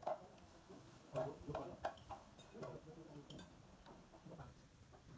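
Scattered light clicks and clinks of chopsticks and spoons against bowls and dishes.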